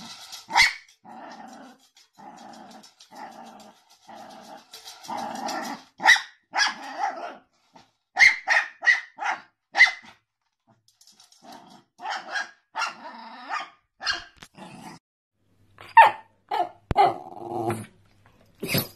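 Jack Russell terrier growling in short rhythmic bursts, then barking in quick runs of sharp yaps, with a sharp knock about half a second in.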